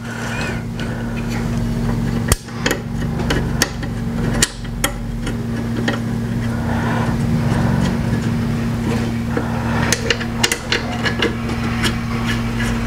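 Irregular clicks and knocks of headlight-assembly parts and small screws being handled and fitted, over a steady low mechanical hum.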